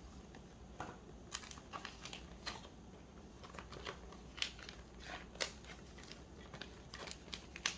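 Clear plastic binder sleeves crinkling as photocards are slid into their pockets and pressed flat: a scatter of faint, sharp rustles and clicks.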